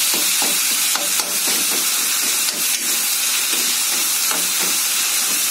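Chopped tomatoes and onion frying in oil in a kadhai, a steady sizzling hiss, while a steel spoon stirs and presses them in repeated scraping strokes against the pan, mashing the tomatoes down into the masala.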